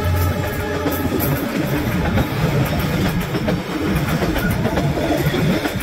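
Passenger carriages of a diesel-hauled commuter train running past at arm's length, with a loud, dense rumble of wheels on rail and scattered clatter and knocks. A low steady hum cuts off just after the start.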